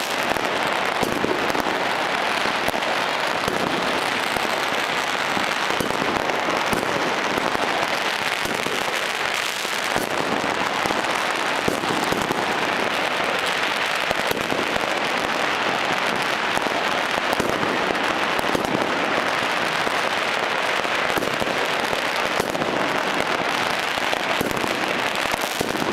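Many fireworks and firecrackers going off at once: a dense, unbroken crackle of countless small sharp bangs and pops.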